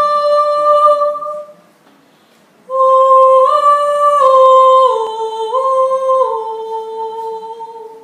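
A single voice humming a held note, then after a short pause a slow stepwise melodic phrase that fades toward the end, with no accompaniment.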